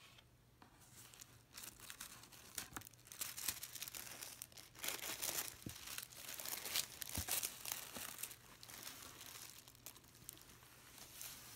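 Tissue paper being unfolded and pulled back inside a cardboard gift box, rustling and crinkling in irregular bursts, quieter for about the first second and a half.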